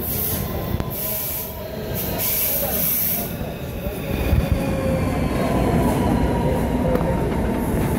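Lastochka (Siemens Desiro RUS) electric train pulling into the platform and slowing: wheels rumbling on the rails, with faint whining tones from the drive and brakes. It grows a little louder about halfway through as the cars pass close by.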